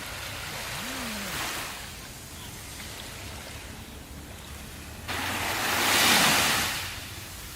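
Ocean surf: one wave washes in and recedes in the first second and a half, then a louder wave breaks suddenly about five seconds in, swelling and fading away over about two seconds.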